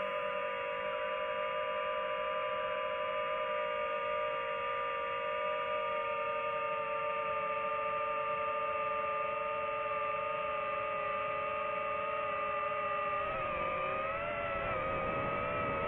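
DJI FPV drone's propeller motors whining, several steady tones together. The pitch drifts slowly lower, then wavers up and down over the last few seconds as the throttle changes.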